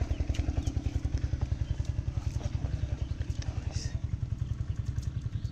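An engine running steadily with a fast, even low throb, with scattered light crackles and clicks over it.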